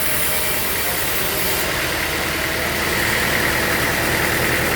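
Sawmill machinery running steadily, an even engine-like drone with a steady high whine that grows a little stronger about three seconds in.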